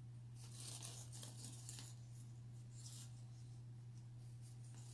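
Faint rustling of paper quilling strips being handled and tightened into a coil, a few soft brushy sounds, over a steady low hum.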